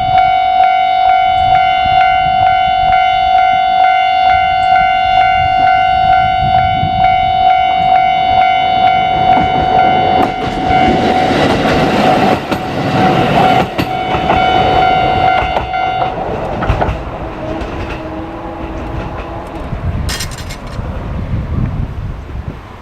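A Japanese railway level-crossing alarm rings a steady, rapidly repeating "kan-kan" ding. A diesel railcar passes over the crossing from about ten seconds in with clattering running noise. The alarm stops about sixteen seconds in, and the train noise fades away.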